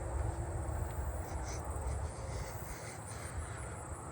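Outdoor insect chorus with common meadow katydids buzzing, a steady high-pitched hum with faint ticking, over a low background rumble.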